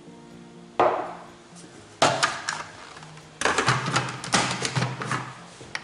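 Lid of a Moulinex Companion food processor being set on the stainless steel bowl and twisted to lock: a knock about a second in, another at two seconds, then a quick run of plastic clacks. Faint background music underneath.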